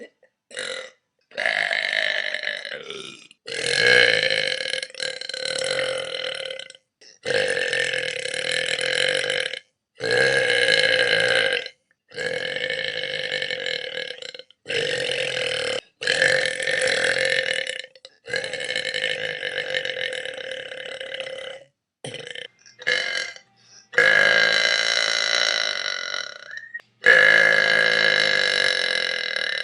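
A person's long, drawn-out burps, about a dozen one after another, each lasting one to three seconds on a fairly steady pitch and cut off abruptly before the next.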